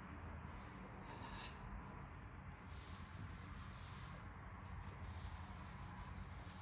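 Faint rubbing noise that comes and goes several times over a low steady background hum.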